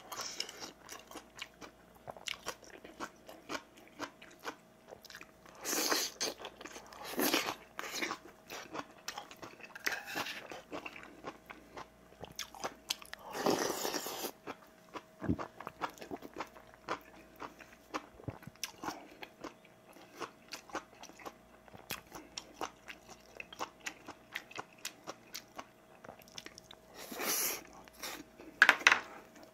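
A person eating: steady chewing of rice and seasoned vegetable side dishes, with chopsticks and a metal spoon clicking against bowls and a tray. A few louder slurps of soup from the spoon, the longest about halfway through.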